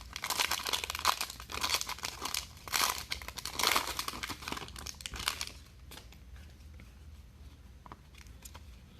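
Plastic trading-card pack wrapper crinkling and being torn open by hand, a dense crackle for about five seconds that then dies down to quiet handling.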